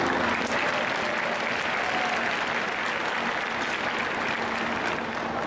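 Audience applauding, the clapping taking over just as the music stops.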